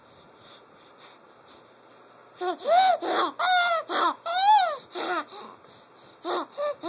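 Baby laughing: after a quiet start, a run of high-pitched laughs beginning about two and a half seconds in, each rising then falling in pitch, with two more short ones near the end.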